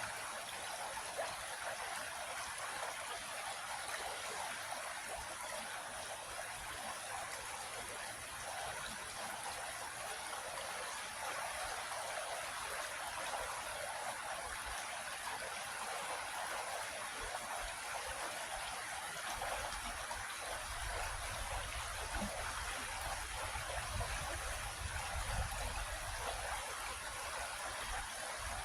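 Creek water flowing and trickling steadily over rocks.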